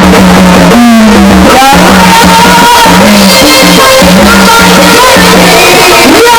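Loud live gondhal devotional music: a melody of held notes that step up and down over a dense accompaniment.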